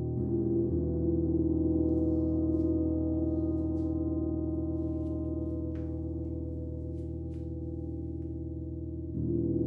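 A gong struck just after the start and again near the end, its deep, layered tones swelling and then slowly fading as they ring on between strikes. A few faint light clicks sound in the middle.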